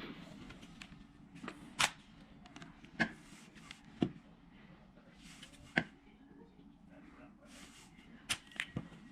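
Grand Power T12 pistol being handled: a series of sharp mechanical clicks, several seconds apart and then three in quick succession near the end, with soft rustling between them.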